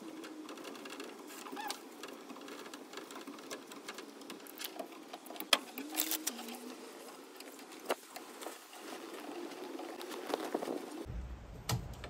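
Scattered clicks and taps of PEX pipe and fittings being handled and fitted into a timber wall frame, over a steady low hum; a few sharper clicks stand out about halfway through and again near eight seconds in.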